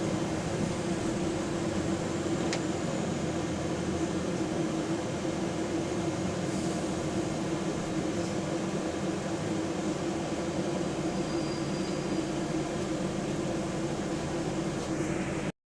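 Diesel engine of a Volvo B9TL double-decker bus, heard from inside the bus as a steady low drone with a leaking exhaust. The sound drops out for a moment near the end.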